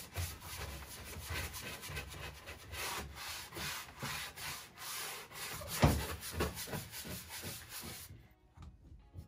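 Bristle wax brush scrubbing soft furniture wax onto the painted wooden drawer front of a dresser in repeated short strokes, with one louder knock about six seconds in. The brushing stops about eight seconds in.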